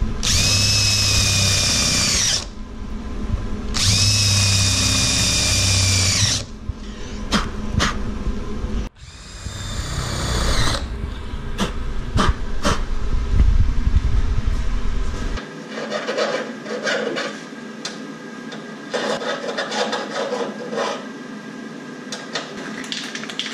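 Cordless drill with a step bit whining in three runs of a couple of seconds each, boring out holes in a car's trunk lid to 5/16 inch. After that, scattered light clicks and handling noises.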